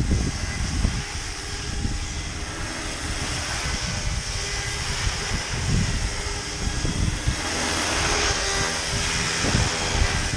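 Electric 700-size RC scale helicopter flying, its rotors and motor giving a steady whine with the head speed at about 1380 rpm. Gusts of wind buffet the microphone throughout.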